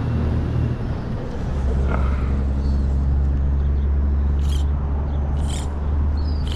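Steady low rumble of road traffic, with a few faint short chirps. In the last two seconds come short hissing swishes about once a second.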